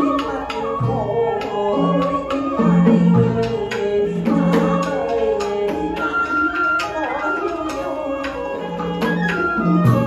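Traditional Vietnamese water-puppet theatre music: a melody of sustained instrumental tones over a steady beat of sharp clacking percussion, with low pitched drum strokes every second or two.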